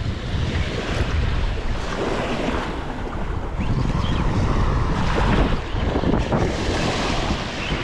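Wind buffeting the microphone, with small waves washing over the sand at the shoreline.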